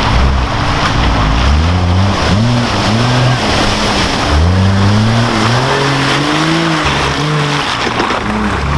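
Off-road vehicle's engine working under load, revving up and falling back several times, its pitch climbing in steps and then dropping.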